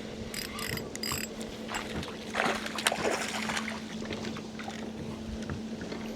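A boat's electric trolling motor humming steadily on one low tone, with a few light clicks and a brief rushing noise about two and a half seconds in.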